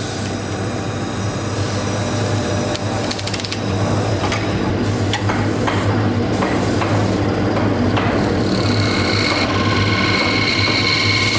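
Lathe running with its tool boring into the inside of a spinning wooden cylinder: a steady motor hum under a constant rough cutting noise, with a few sharp clicks a few seconds in. A high steady whine joins in near the end.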